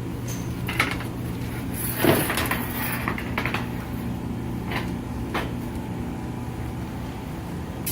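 Steady machine hum from the powered BTU conveyor furnace, with a few scattered knocks and clunks, the loudest about two seconds in, like a cabinet door or panel being handled.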